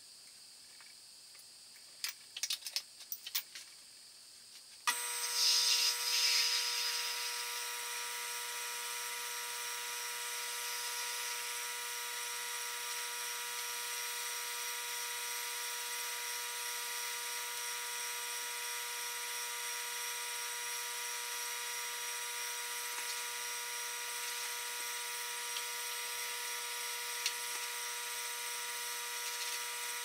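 Taig benchtop metal lathe started up about five seconds in, its motor and belt drive then running with a steady whine. Before that, a few light clicks and knocks of metal parts being handled on the machine.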